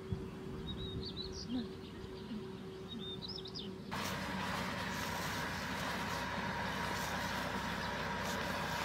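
A small bird chirping in short high repeated phrases over a faint steady hum. About four seconds in, this cuts off abruptly and is replaced by a louder, steady outdoor hiss and rumble.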